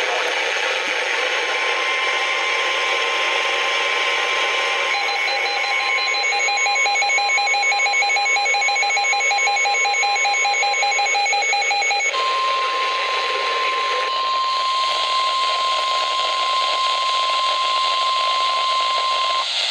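NOAA Weather Radio over a hiss of static. About five seconds in, a rapid warbling pattern of data tones, the SAME digital alert header, runs until about twelve seconds. Then the single steady Warning Alarm Tone sounds for about seven seconds and cuts off, signalling a warning about to be read.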